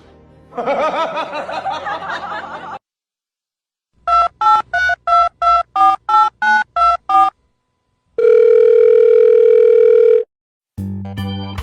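Telephone keypad tones: about a dozen short two-tone beeps in quick succession, followed by a steady tone lasting about two seconds.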